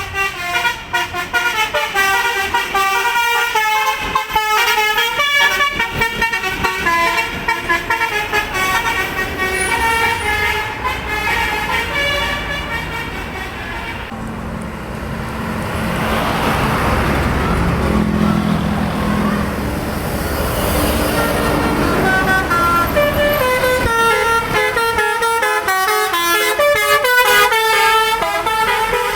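Bus telolet basuri horn playing a quick, stepping multi-note tune. About halfway through the tune breaks off for several seconds of rushing noise with a low engine hum, then the horn tune starts again.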